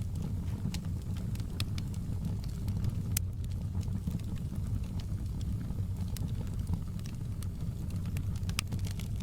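Wood fire crackling, with frequent irregular sharp pops over a steady low rumble; one louder pop about three seconds in.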